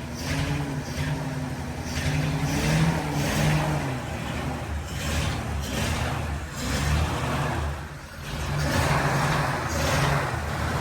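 1948 Ford V8 Pilot's flathead V8 engine running, its sound swelling and dropping back a few times.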